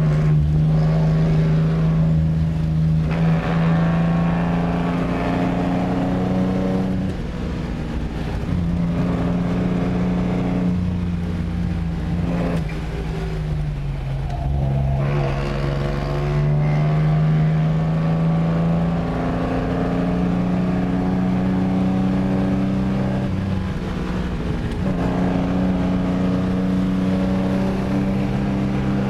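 1953 Lancia Aurelia B20 GT's V6 engine heard from inside the cabin, pulling hard. The revs climb and drop again and again as it accelerates, changes gear and eases off for bends.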